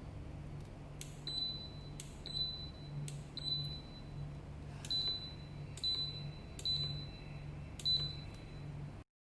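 Control panel of a car refrigerator beeping as its buttons are pressed: seven short high beeps, each with a click, about a second apart, over a low steady hum.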